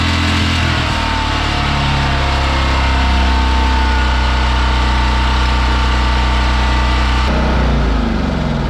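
Huttenberg H8500W generator's 6.5 HP petrol engine running steadily with no load, while its alternator puts out only about 21 V. Its note drops a little near the end.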